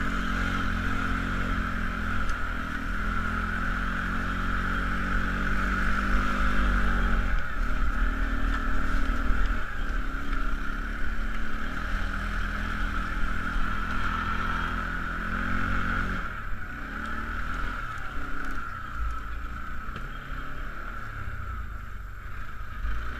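Kawasaki ATV engine running while riding, its pitch shifting up and down with the throttle. It eases off a little about two-thirds of the way through.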